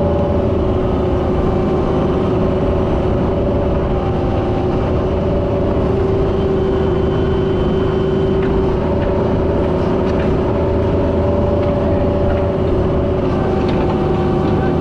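Diesel engine of heavy equipment running steadily at work, with whining tones that shift in pitch a few times.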